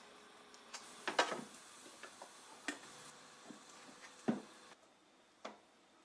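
A few light clicks and taps from handling trays of microgreens, scattered irregularly; the sharpest come about a second in and a little after four seconds.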